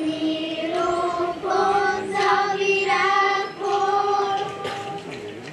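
A group of children singing together in long held notes, the song ending about five seconds in.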